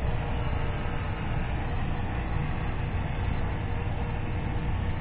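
Sky Viper E1700 stunt drone, a small quadcopter, flying: its four motors and propellers buzz steadily as it hovers.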